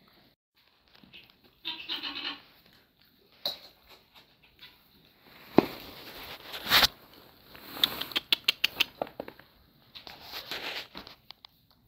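Great Pyrenees puppies moving about on straw bedding: scuffling and rustling with a few knocks, and a quick run of sharp clicks about two-thirds of the way through.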